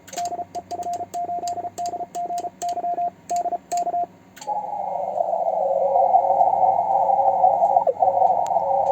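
Morse code sent at about 33 words per minute with a homemade 3D-printed paddle: a keyed transceiver sidetone of dots and dashes, each element with a faint click. After about four seconds the sending stops and the receiver comes back: band hiss through a narrow CW filter with another station's weaker Morse tone in it.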